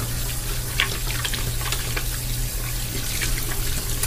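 Tap water running steadily from a bathroom faucet into a ceramic sink, with irregular small splashes as hands are rubbed together under the stream.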